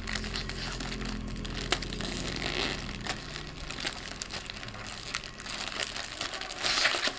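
Plastic snack packaging crinkling and crackling as it is handled and pulled open, with a louder burst of crinkling near the end.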